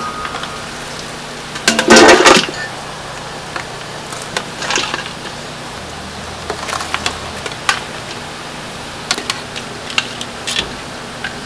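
Perforated stainless skimmer clanking and scraping against a stainless stockpot as boiled lamb bones and ribs are scooped out. The loudest clatter comes about two seconds in, with lighter knocks after it, over a steady background hum.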